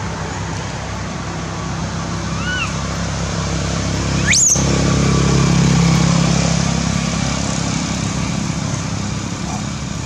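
A motor vehicle engine hums, building to its loudest about halfway through and then fading, as if passing by. A short chirp comes a little after two seconds in, and a single shrill call sweeps sharply upward near the middle.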